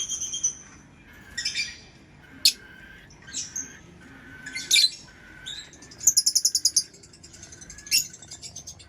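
Lovebirds chirping: a string of short, sharp chirps and squawks about once a second. About six seconds in comes a fast rattling trill, followed by a quieter rapid chatter near the end.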